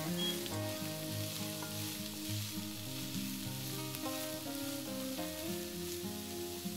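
Diced onion and sliced carrots sizzling steadily as they fry in a nonstick pan, stirred and scraped with a spatula, over soft background music.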